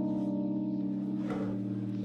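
Background music: soft held chords with a gentle pulsing, the bass note stepping down about halfway through.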